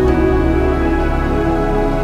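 Background music: a slow, sustained new-age style instrumental with held tones.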